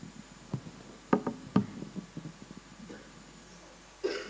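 Handling noise from a live microphone: several sharp knocks and bumps, most of them about one to two seconds in.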